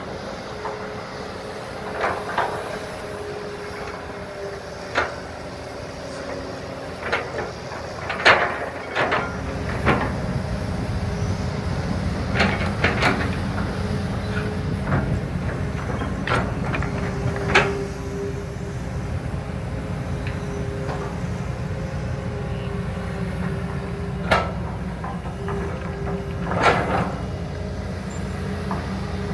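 Hydraulic excavators, a Kobelco and a Hitachi, digging a trench: steady diesel engine drone with a wavering hydraulic whine, broken by frequent sharp clanks and knocks from the buckets and arms. About nine seconds in, a deeper engine rumble comes in and stays, louder.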